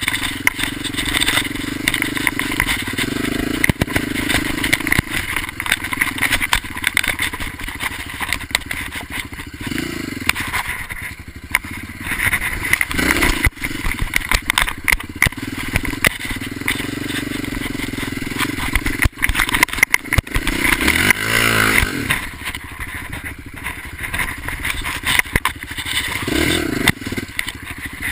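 ATV engine revving up and down as the quad is ridden over rough sand and dirt, with a quick blip of revs near the three-quarter mark. Knocks and rattles from the bumpy ground run through it.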